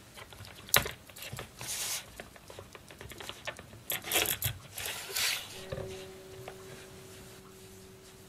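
An Eickhorn GEK knife in its leather sheath knocks sharply on a wooden cutting board. Rubbing, scraping and a few clicks follow as the sheath is handled and the blade is drawn.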